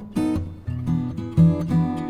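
Instrumental background music, with new notes starting several times a second.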